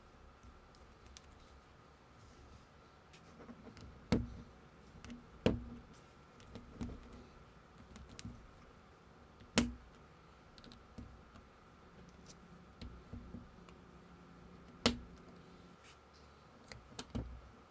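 Plastic building bricks clicking and snapping as small pieces are pressed onto a baseplate: scattered faint clicks, with four sharper snaps spread through.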